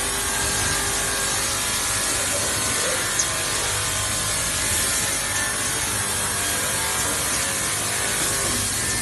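Sanding and polishing machines on a stainless steel utensil line running steadily: a continuous abrasive grinding hiss over a layered machine hum, with a single small click about three seconds in.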